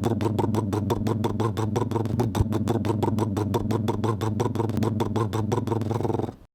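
A cartoon sound effect: a rapid, even pulsing, about seven pulses a second, over a steady low hum, which cuts off suddenly near the end.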